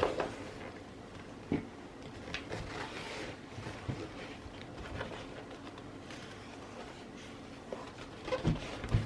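Soft, scattered rustles and light taps from a rolled leather journal with parchment-like pages being handled and leafed through.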